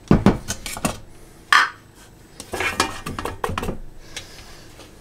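Handling of a Thermomix mixing bowl: its plastic lid and a plastic insert are worked off the stainless-steel bowl, giving a series of clicks and knocks, with a brief ringing squeak about one and a half seconds in.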